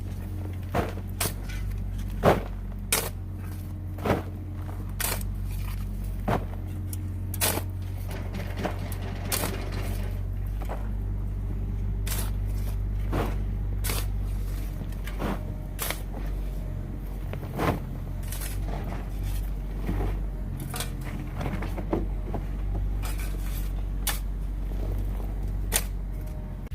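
A motor running steadily with a low hum, overlaid by sharp knocks or clacks that come irregularly, about one a second.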